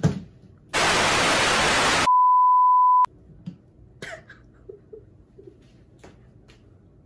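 An edited-in sound effect: a burst of white-noise static lasting about a second and a half, followed straight away by a steady one-second bleep tone, as used to cover a swear word. It cuts off abruptly about three seconds in, leaving only faint handling rustles and light knocks.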